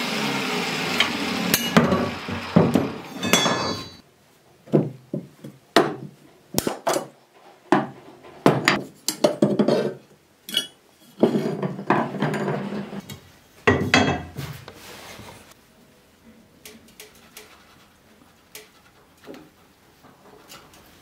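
Steel tube chair frame being handled and worked on a wooden workbench: a run of sharp metal knocks and clanks, dying down to lighter scattered clinks for the last few seconds.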